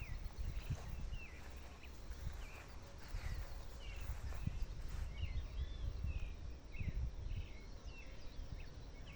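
Birds chirping at dusk: many short, quick chirps, several a second, over a steady low rumble.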